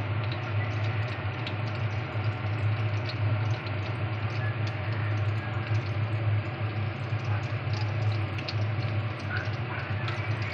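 Saba banana strips deep-frying in hot cooking oil: a steady sizzle with many fine crackles. A steady low hum runs underneath.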